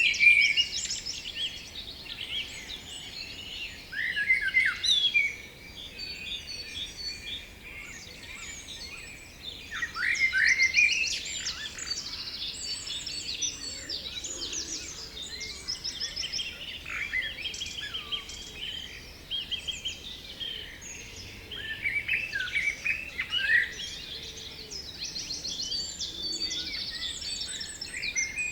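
A chorus of several songbirds singing, overlapping trills, chirps and whistled phrases, with louder bursts of song every few seconds.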